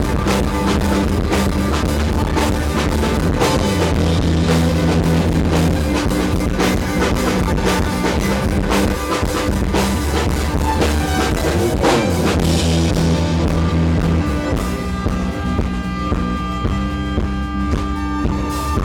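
Live rock band playing: a drum kit, electric guitar and bass. About two-thirds of the way through, the drums and cymbals thin out, leaving sustained guitar chords ringing.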